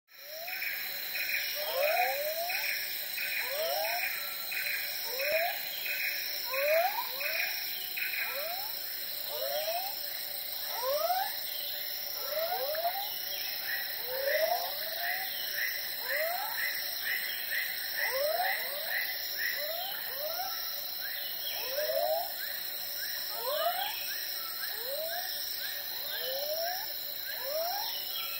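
Night-time chorus of calling animals: steady high insect drones, with short rising whoops repeated every second or so and pulsed chirps at about three a second.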